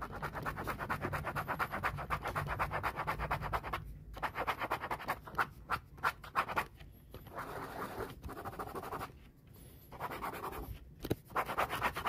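Stylus nib scratching rapidly back and forth across a phone's glass touchscreen, colouring in a drawing with quick short strokes. It breaks off briefly about four and seven seconds in, and pauses longer near nine seconds.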